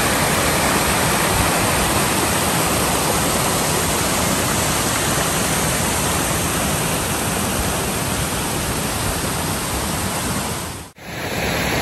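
Waterfall: a steady, even rush of falling water close by, broken by a sudden cut about a second before the end.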